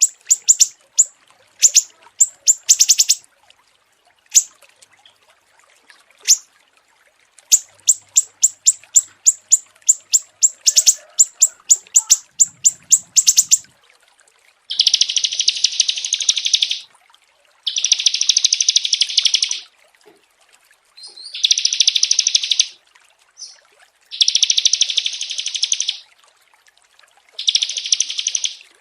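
Small songbirds singing: quick runs of sharp, high chips, about eight a second, in bursts. From about halfway, long buzzing trills of about two seconds each, five of them with short pauses between.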